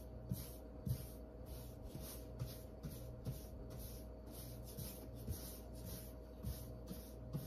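Angled paintbrush stroking paint onto a wall, a soft swishing scrape back and forth at about two strokes a second.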